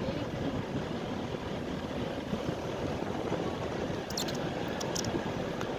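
Steady road, tyre and wind noise heard from inside a moving car, with a few faint light clicks about four seconds in.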